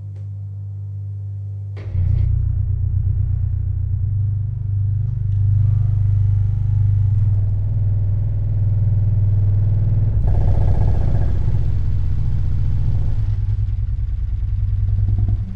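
Deep movie-soundtrack bass played very loud through Stereo Integrity HS-24 24-inch subwoofers, heard as a heavy, continuous rumble in the room that steps up in level about two seconds in and stays heavy, with doors in the room rattling from it. Some higher sound effects join the rumble a little past the middle.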